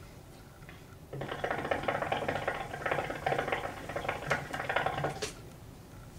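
Hookah water bowl bubbling as smoke is drawn through the hose in one long pull: a rapid, crackly gurgle that starts about a second in and stops abruptly about four seconds later.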